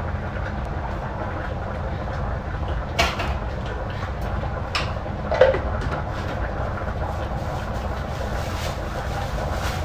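A steady low rumble, with a sharp knock about three seconds in and another short knock and clink about five seconds in.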